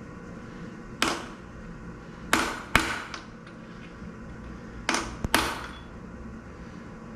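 Hammer blows driving a triple-square bit into a stripped Allen-head main cap cross bolt of an Audi BCY V8, each blow with a metallic ring. There is a single blow, then a pair, then a quick run of two or three.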